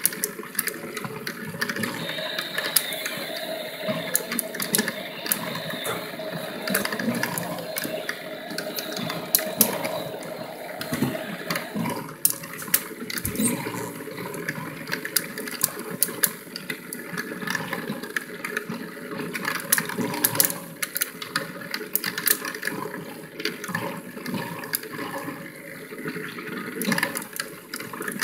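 Water swirling and churning in a motor-driven tornado-vortex toy, a steady rushing wash with frequent sharp clicks and rattles. A faint steady hum in it stops about twelve seconds in.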